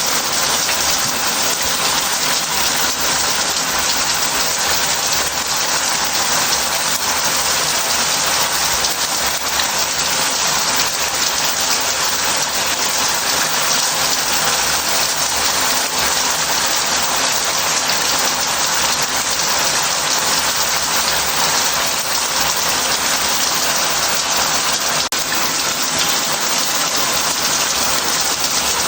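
Shower head spraying steadily into a bath, a loud, even hiss of water hitting the surface.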